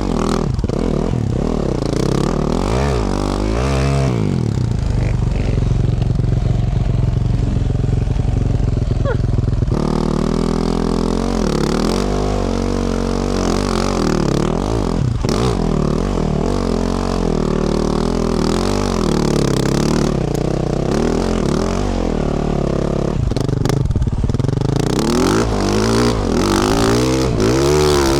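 2024 Yamaha YZ450F's single-cylinder four-stroke engine through a Yoshimura RS-12 exhaust, revving up and down repeatedly under a rider's throttle. There is a lower, calmer stretch about four to ten seconds in, then hard revving again.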